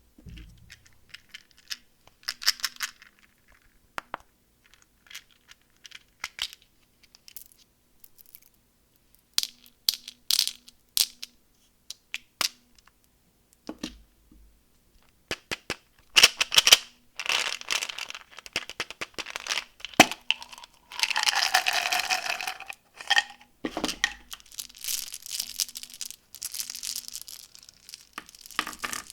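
Candy packaging being handled and unwrapped: scattered plastic crinkles and clicks at first, then, about halfway through, denser crinkling and tearing of wrappers, with one longer continuous tear a few seconds later.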